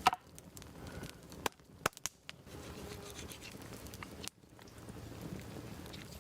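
Campfire crackling: a few sharp cracks and snaps, the loudest right at the start and a cluster around two seconds in, over a low steady rumble of the fire.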